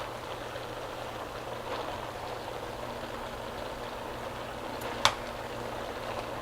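Cabbage and sauerkraut cooking in butter in a pot on the stove, a steady sizzling. About five seconds in there is one sharp clink of a utensil against the pot.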